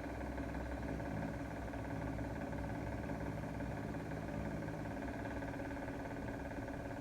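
A steady machine hum with several held tones over a low rumble, unchanging throughout.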